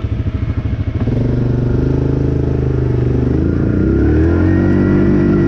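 ATV engine idling with a pulsing beat, then revved about a second in and held, climbing higher in pitch near the end as the quad strains to pull itself out of a muddy rut.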